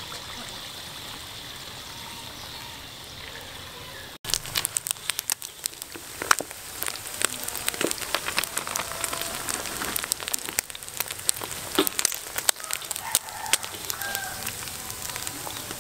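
Frogs deep-frying in a wok of hot oil: a steady sizzle. From about four seconds in, it is louder and thick with sharp crackles and pops.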